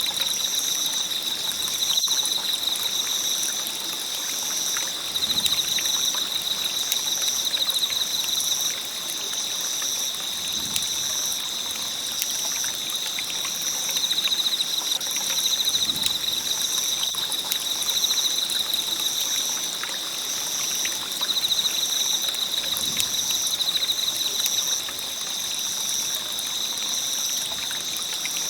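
Wood campfire burning, a steady hiss of crackling with many small pops. A steady high-pitched trill, pulsing evenly, runs behind it.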